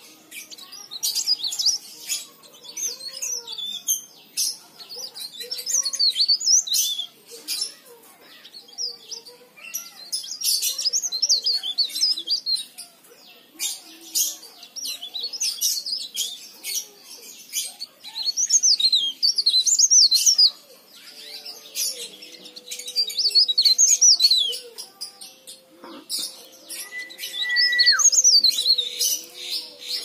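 Caged cikrak daun leaf warbler singing busily: quick, high-pitched twittering phrases a couple of seconds long, repeated with short pauses. This is the lively 'gacor' song that hobbyists play as a lure to get other leaf warblers singing. A short level whistle drops off near the end.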